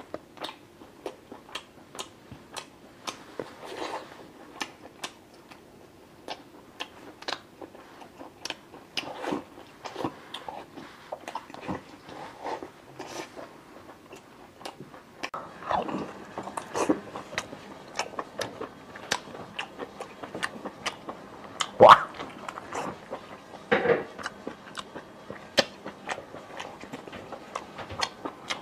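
Close-up mouth sounds of a person chewing octopus and sea snail: a steady run of short wet smacking clicks, with a few louder smacks in the second half, the loudest about 22 seconds in.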